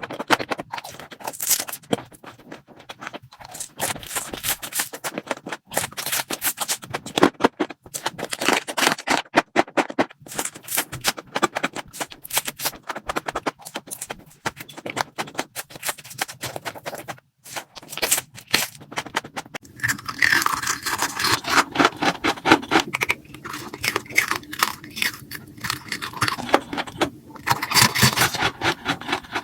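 Close-miked eating: rapid crisp crunching, clicking and scraping of food being bitten and chewed. Some pitched sound comes in about two-thirds of the way through.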